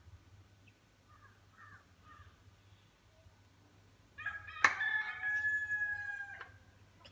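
A rooster crowing once, one long call of about two seconds starting about four seconds in, with a sharp click near its start. Faint bird chirps come before it.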